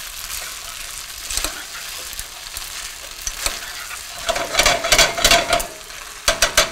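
Orzo with bacon and asparagus sizzling in a hot skillet as it is stirred, with a splash of pasta water just added. From about four seconds in the spoon scrapes steadily against the pan, and a few sharp knocks come near the end.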